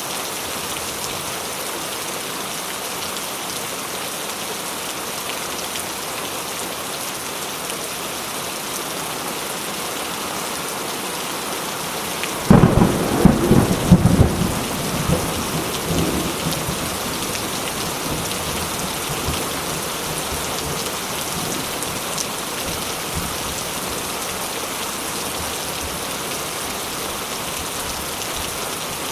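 Steady rain falling, with a clap of thunder breaking in about halfway through: a sudden loud crack and rumble that dies away over several seconds into the continuing rain.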